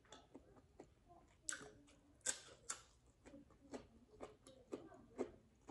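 Faint eating sounds: chewing and wet mouth noises, with many small scattered clicks and a few longer smacking bursts.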